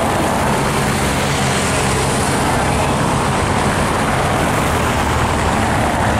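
Team car and race vehicles passing along a cobbled road behind a group of cyclists: engine and tyre noise on the cobbles, steady throughout with a low hum underneath.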